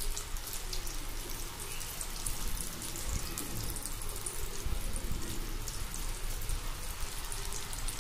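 Batter-coated chickpea pieces deep-frying in hot mustard oil in a wok: a steady crackling sizzle as fresh pieces are dropped in one by one.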